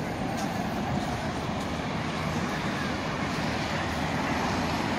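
Steady road traffic: many cars passing on a busy avenue, a continuous even noise of engines and tyres.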